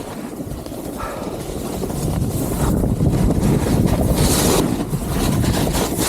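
Wind rushing over the camera microphone during a fast ski descent, with skis sliding and scraping over snow; the rush builds over the first few seconds, and a sharper hiss of skis on snow comes about four seconds in.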